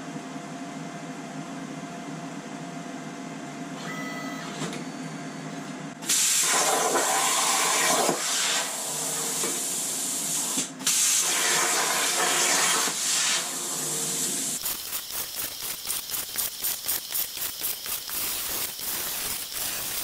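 Plasma torch on a CNC plasma table cutting 1/8-inch hot-rolled steel plate. A steady low hum runs for about six seconds before a loud hiss starts. The hiss breaks off briefly twice, and in the last five seconds it turns into a fast pulsing.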